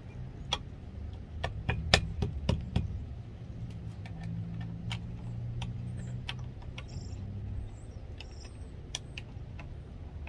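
Sharp metallic clicks and taps of a small hand tool working the mount bolt on a car roof-rack crossbar foot, a quick cluster in the first few seconds and scattered ones after. A low steady hum underlies the middle of it.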